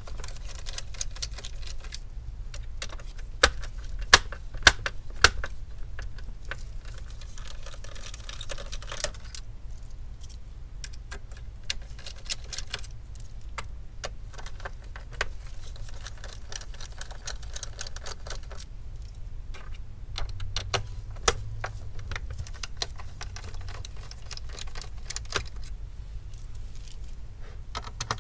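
Screws being backed out of the metal stand bracket: repeated light metallic clicks and clinks of screws and tools, with stretches of fine rattling. A run of sharper clicks comes a few seconds in and a few more about three-quarters of the way through.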